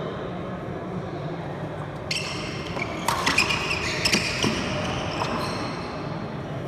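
Badminton rally on a wooden indoor court: several sharp hits of rackets and feet between about three and four and a half seconds in, with shoe squeaks starting about two seconds in, over a low murmur of the hall.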